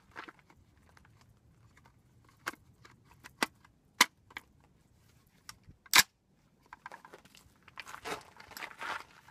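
Sharp metallic clicks and clacks of a Catamount Fury II 12-gauge semi-auto shotgun being handled and readied to fire, about five of them, with the loudest clacks about four and six seconds in. A rustling noise follows near the end.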